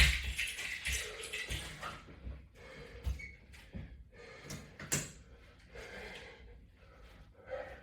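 Irregular rustling and light knocks from resistance-band exercise equipment being worked, with the loudest knock right at the start.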